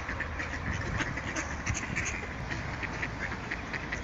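Mallards quacking: many short quacks in quick succession from several birds gathered for bread.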